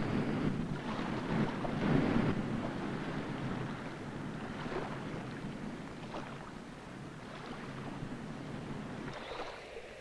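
Sea surf surging and breaking against rocks: a steady rushing wash of water, loudest in the first couple of seconds, then easing off and thinning out near the end.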